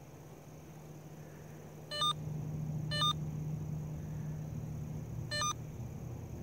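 Three short electronic beeps, each a quick run of stepped tones, from a Vevor underground cable locator's handheld receiver, about two, three and five seconds in. Under them runs a low steady hum that grows louder after the first beep.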